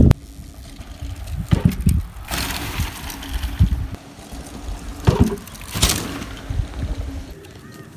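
Mountain bike riding over rough grass and taking a small jump: a low rumble with several clattering thumps from the bike, the loudest about one and a half and six seconds in; the rumble stops suddenly near the end.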